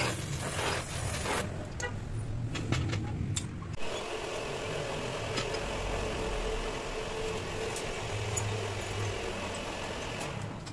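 Gas welding torch hissing, cut off about a second and a half in, followed by a few light metallic clicks of pliers handling a cast-aluminum cylinder head. From about four seconds in, a steady engine-like running sound of unknown source.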